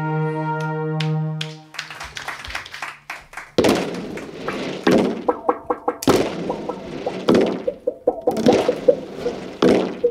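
Sparse live avant-pop music from a small band: a held tone stops a little under two seconds in, then irregular knocks and taps on small drums and hand percussion, with short pitched notes in between.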